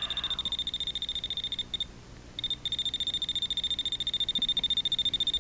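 Voltage-tester screwdriver's buzzer beeping in a rapid, continuous high-pitched trill while its red light is lit: the tester's alarm for a detected voltage field. It breaks off for about half a second near the two-second mark, then starts again.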